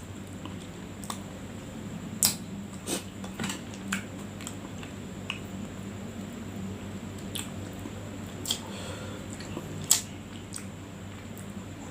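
Close-up eating sounds: chewing and biting, with scattered sharp clicks and crunches, over a steady low hum.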